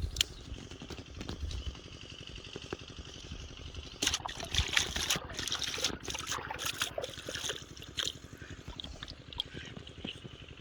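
Water splashing and trickling, with a louder stretch of splashing from about four to seven seconds in.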